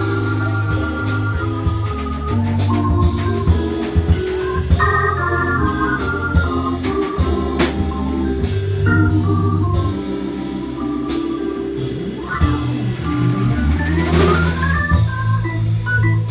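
Live jazz trio: a keyboard with an organ sound plays held chords over a low bass line, a vibraphone plays notes struck with mallets, and a drum kit keeps time with cymbal and drum strokes. A quick rising run of notes comes near the end.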